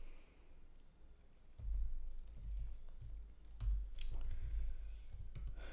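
Typing on a computer keyboard: scattered key clicks starting about one and a half seconds in, over a low rumble.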